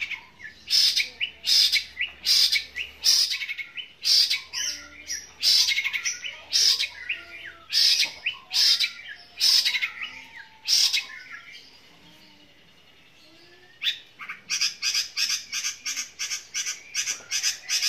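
A caged long-tailed shrike (cendet) giving loud, harsh calls about every half second, mimicking the chatter of fighting tree sparrows. After a lull near the middle it breaks into a fast run of about four calls a second.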